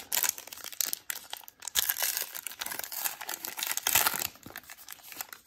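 A baseball card pack's wrapper torn open and crinkled by hand: a dense run of quick crackles and rustles, loudest about two and four seconds in, then dying down near the end.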